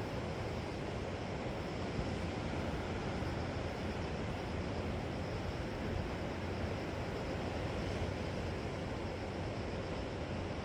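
Seashore ambience: a steady low wash of surf, with no single wave break standing out.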